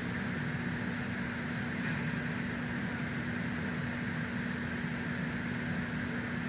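Steady machine hum with an even hiss from room equipment running, like a climate unit or fan; it holds constant throughout.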